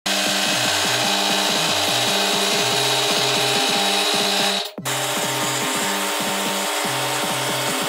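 Background music with a stepping, melodic bass line over a steady wash. It cuts out briefly a little past halfway, then resumes.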